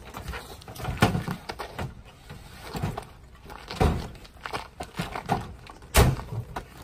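Thuds and knocks of backpacks and camping gear being handled at the back of a pickup truck, with heavier thumps about a second in and near four seconds. The loudest is a bang about six seconds in: the pickup's tailgate slammed shut.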